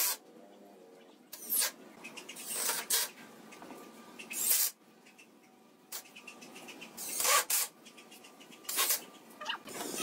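Cordless drill driving screws into pallet wood in several short bursts, with pauses between them.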